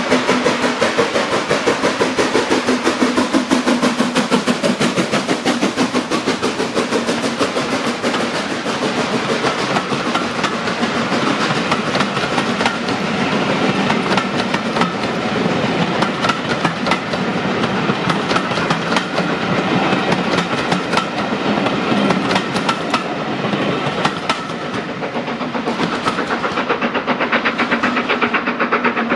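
BR Standard Class 4 4-6-0 steam locomotive No. 75069 passing at speed with a passenger train: a rapid stream of exhaust beats, then the coaches rolling by with a clickety-clack of wheels over the rail joints, dying away near the end.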